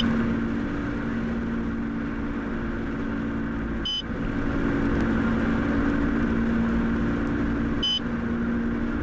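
A car driving, heard from inside: steady road and engine rumble with a low hum. A short high beep sounds three times, about four seconds apart.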